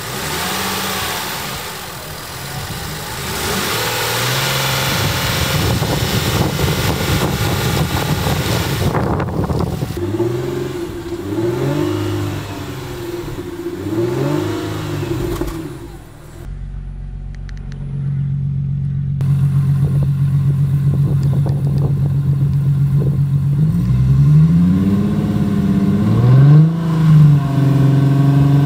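Infiniti Q50S Hybrid's 3.5-litre V6 running through an aftermarket remote-controlled exhaust, revved repeatedly in quick blips with steady idling in between.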